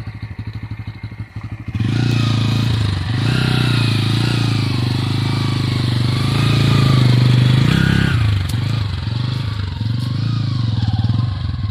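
Bajaj Pulsar N160's single-cylinder engine ticking over at low revs, then opened up hard about two seconds in and revving up and down under load as the motorcycle climbs out of the river water onto a sandy bank. The revs peak about three quarters of the way through, then ease.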